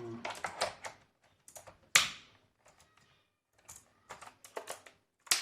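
Sharp plastic clicks and knocks from handling a mechanical keyboard while a wrist rest is pushed into place against it. One loud click comes about two seconds in, with scattered smaller clicks around it.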